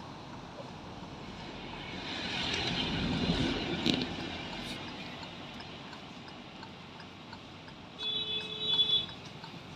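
A motor vehicle passing, its noise swelling and fading between about two and four seconds in over a steady background hiss. Near the end a short, steady pitched tone sounds for about a second.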